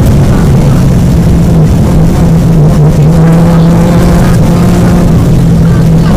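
Peugeot 205 GTI rally car's four-cylinder engine running hard, heard loud from inside the cabin. Its pitch eases slightly at the start, then holds steady, over a low rumble.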